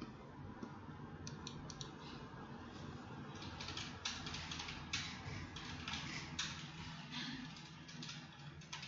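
Computer keyboard keys clicking in short, irregular taps, over a low steady hum.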